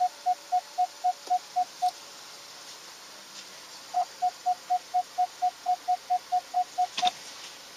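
Rapid electronic beeping, one steady pitch at about four beeps a second. One run of beeps is followed by a pause of about two seconds, then a second, longer run that ends with a sharp click.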